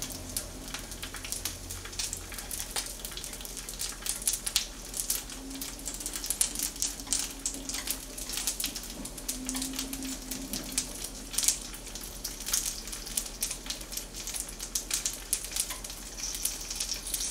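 Frozen dumplings frying in oil in a frying pan: irregular light crackling and popping, the dumplings finishing on the pan's residual heat.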